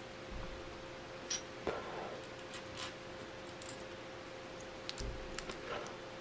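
Plastic building bricks being handled and pressed together by hand: a scattering of small sharp clicks and light knocks, over a faint steady hum.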